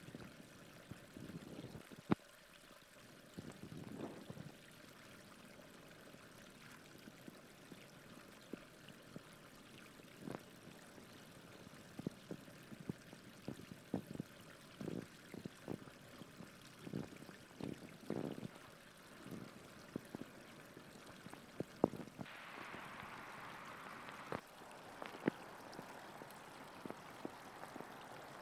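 Faint trickling, running water with scattered soft knocks and a few sharp clicks, irregular and unpaced. A louder patch of hiss comes in about three-quarters of the way through.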